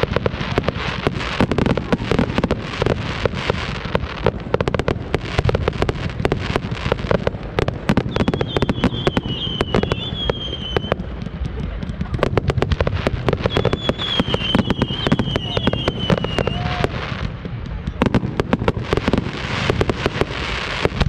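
Fireworks display: a rapid, unbroken barrage of bangs and crackles. Twice a long, wavering high whistle runs over the top for about three seconds.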